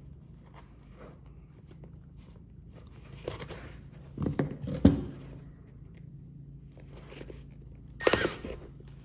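Canvas-and-leather tool belt being handled over a wooden workbench: rustling and scraping of the fabric and leather, with two sharp knocks about halfway through and another rustle and knock near the end as a pouch is set down on the bench. A faint steady hum runs underneath.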